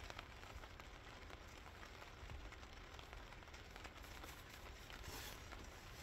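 Near silence: faint steady background noise with scattered soft ticks and a brief hiss about five seconds in.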